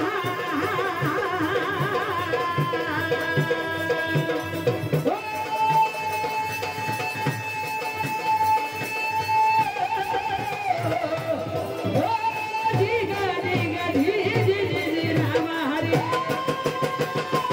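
A woman singing a Marathi devotional folk song with long held, ornamented notes, over a steady rhythm on hand drums such as tabla.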